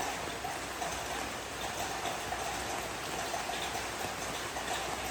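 Steady rain falling, a dense even patter of many drops with no single loud event.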